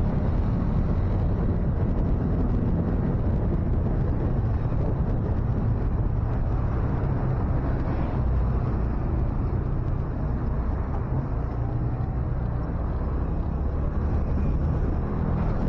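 Motorcycle engine running steadily at low road speed, heard from the rider's seat, under a steady wash of road and traffic noise.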